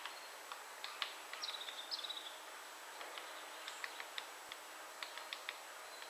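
Great spotted woodpeckers tapping on tree wood: scattered single sharp taps at irregular intervals, with two short, rapid drum rolls about a second and a half and two seconds in.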